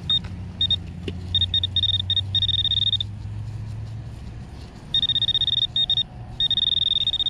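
Garrett Pro-Pointer AT pinpointer sounding its high single-pitch alert tone as it is probed around a dug hole: short beeps at first, then longer held tones that mean the tip is right on a metal target. A low hum runs under it for the first few seconds.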